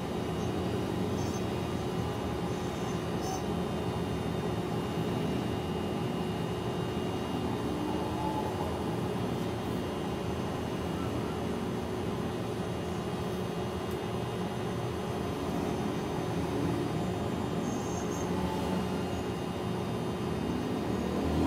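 Steady low mechanical drone with one constant hum tone, unchanging in level.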